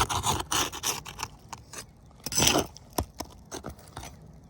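Irregular scraping and crackling as an old, brittle asphalt shingle is pried up to break its tar seal, with a sharp click about three seconds in.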